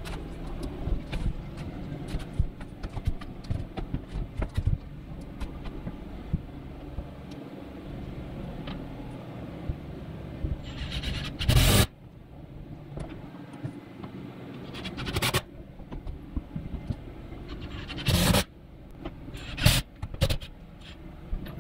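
An OSB wall panel being handled and fitted against the framing: scraping and scattered knocks of board on wood. A few short, loud bursts stand out, one about halfway through and several more near the end.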